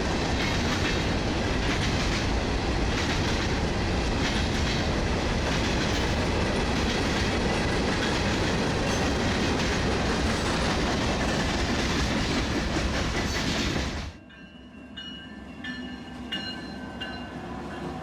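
CSX manifest freight train's cars rolling past, a steady wash of wheel-on-rail noise. It cuts off abruptly about fourteen seconds in, leaving a much quieter background with short high tones.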